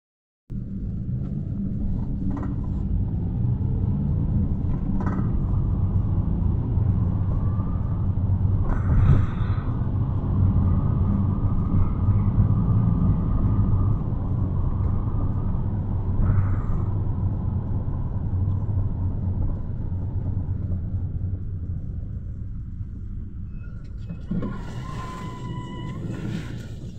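Inside a Luidor-223237 minibus (Mercedes-Benz Sprinter Classic) on the move: steady engine and road rumble, swelling about a third of the way in and easing off later. Near the end a brief higher noise with a short falling squeal.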